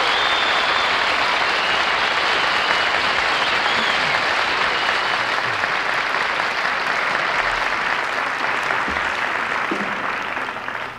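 Audience applauding at the end of a song, steady and then dying away near the end.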